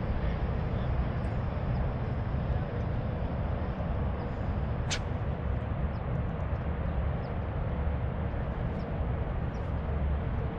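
Steady low outdoor rumble with no words, with a single short high-pitched chirp about five seconds in.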